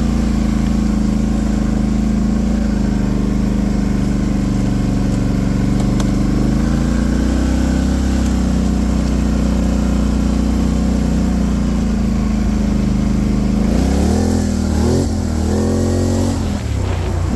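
Polaris Sportsman 850 ATV engine running steadily while riding, then rising and falling in pitch several times near the end as the throttle is opened and closed.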